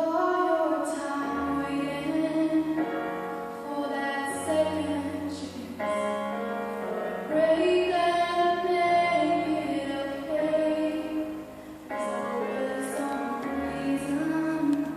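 A female singer sings a slow song in long held phrases over a piano accompaniment, run through at a sound check.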